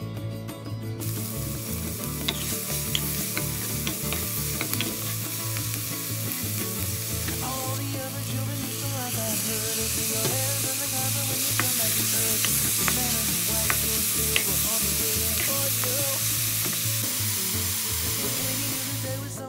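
Diced green pepper and chicken stir-frying in a hot pan: a steady sizzle that starts about a second in and grows louder about nine seconds in, with frequent light clicks from a wooden spatula stirring and scraping against the pan.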